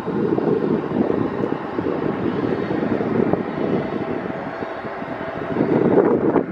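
Boeing 737-800's CFM56 jet engines running as the airliner taxis, a steady rumble with a faint hum, with wind buffeting the microphone.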